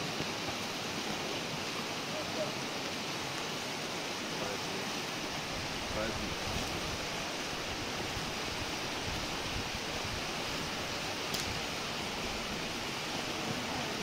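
Steady rushing of a flowing river.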